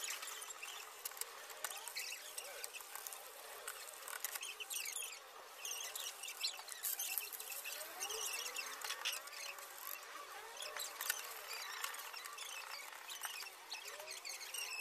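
Toothbrush bristles scrubbing the wet plastic top case of a Dell KB216 keyboard in soapy water: a steady scratchy brushing full of small clicks.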